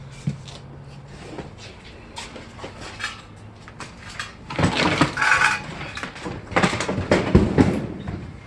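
Boxes and household items being handled and shifted: scattered knocks, then two bouts of clattering and rattling about halfway in and again about a second later, with a brief clink in the first bout.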